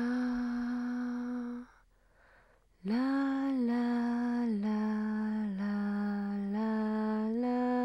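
A slow melody in a single line of long held notes, one pitch at a time. The first note is held, then breaks off about a second and a half in. From about three seconds in, the melody goes on as notes of about a second each, sliding briefly between pitches.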